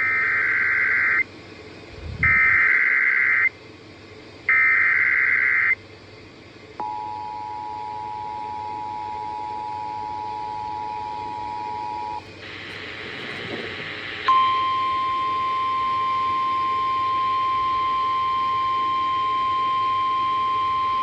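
Emergency Alert System broadcast over FM radio. Three bursts of warbling SAME digital header data come first, then the two-note EAS attention signal for about five seconds. After a brief burst of static, a single steady NOAA Weather Radio warning alarm tone starts about fourteen seconds in.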